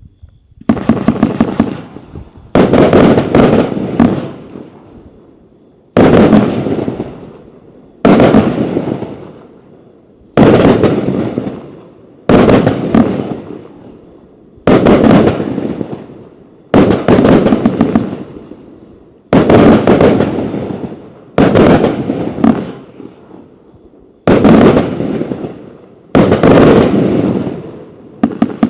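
Riakeo Weapon X 77-shot firework cake with 25 and 30 mm tubes firing, starting about half a second in. It goes off in loud volleys of rapid bangs about every two seconds, each volley dying away before the next.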